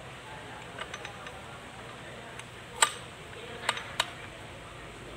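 Scattered sharp metallic clicks and clinks from the steel gears and shaft of a Kubota B6001 tractor transmission as a shaft with its bearing housing is twisted and pushed into the gear case. A few light ticks come about a second in, the loudest click just before three seconds, and two more about a second after it.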